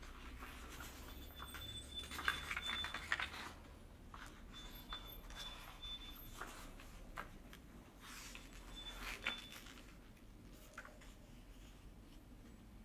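Loose sheets of paper rustling as they are handled and leafed through, in soft scattered bursts that are busiest about two to three seconds in and again around nine seconds.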